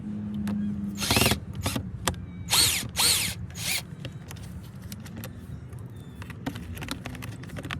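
Power drill or driver whirring in short bursts, speeding up and slowing down, while the door panel of a 2013 Nissan Altima is being screwed back together; the loudest burst comes about three seconds in, with a few quieter clicks after.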